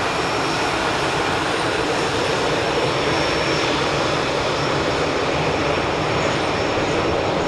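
Airbus A320 jet engines running steadily: a dense, unchanging engine noise with a faint high whine that fades over the first few seconds.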